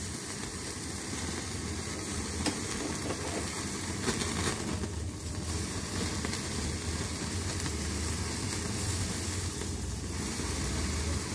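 Gas burner flame running steadily under marinated chicken tikka skewers, with sizzling from the meat charring over the open flame on a wire roasting net.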